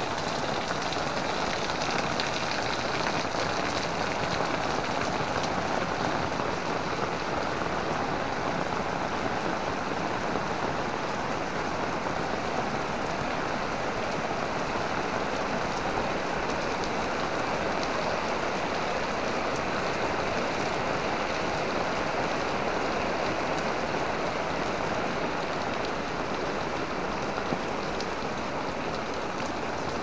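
Heavy rain falling steadily, a dense, unbroken spatter of drops hitting an umbrella overhead.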